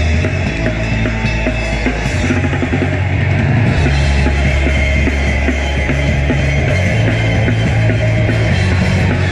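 A live metalcore band playing loud heavy music: distorted guitars and bass shifting through riff changes over a driving drum kit, recorded from within the crowd.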